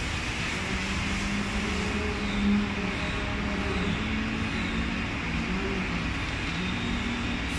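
Steady low mechanical hum, slightly wavering in pitch, with the even scratching of sandpaper on a small block rubbed over a basin's glazed ceramic surface to sand off a laser-etched logo.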